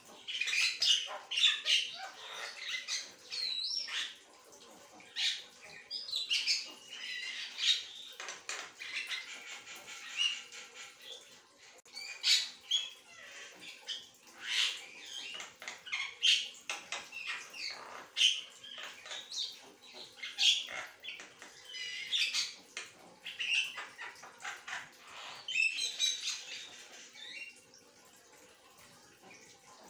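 Caged Javan myna (jalak kebo) singing vigorously, a fast, varied chatter of short whistles, squeaky warbles and sharp clicking and harsh notes in quick runs with brief pauses, growing quieter over the last few seconds.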